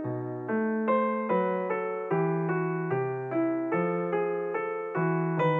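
Background music: a gentle electric piano melody, notes struck in a steady rhythm about two to three a second over a sustained bass line.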